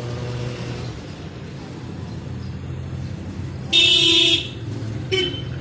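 A vehicle horn honks twice: a toot lasting under a second about two-thirds of the way through, then a brief short toot near the end, over a low steady hum.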